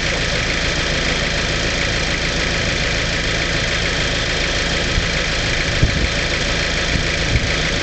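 Vauxhall Frontera 4x4 engine idling steadily, with a couple of brief thumps about six and seven seconds in.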